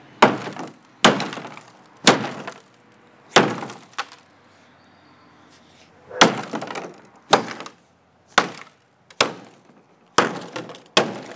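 Claw hammer striking the broken remains of an iPhone 3GS, about ten sharp blows at irregular intervals with a pause of about two seconds midway, the phone's glass cracking and crunching under them.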